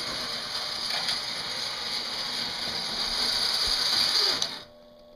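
Lionel 265E Commodore Vanderbilt toy locomotive's electric motor and gearing whirring and grinding steadily as it runs on the tinplate track. The owner takes the sound for dirty motor brushes. The sound cuts off suddenly about four and a half seconds in, leaving only a faint hum.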